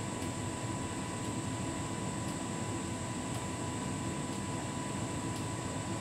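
Hotpoint heat pump tumble dryer running on its anti-allergy cycle, the drum turning with clothes tumbling inside: a steady hum and whir with a thin steady whine, and a faint tick about once a second.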